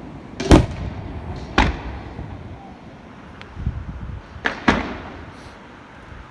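Fireworks bursting: a string of sharp bangs, about five in six seconds, two of them close together past the middle, each trailing off in a rolling echo.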